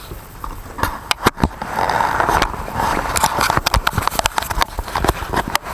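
Footsteps with a run of sharp clicks and knocks, and a rustling hiss for about a second starting near two seconds in.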